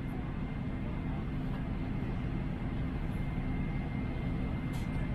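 Steady low cabin noise inside a Boeing 787 airliner, with a constant hum from the aircraft's engines and air system. A brief soft rustle near the end.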